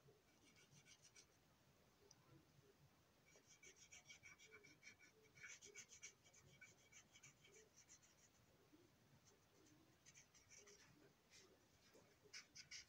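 Faint scratching of a felt-tip marker tip being stroked over a plastic boxcar body, in short runs of strokes with pauses between.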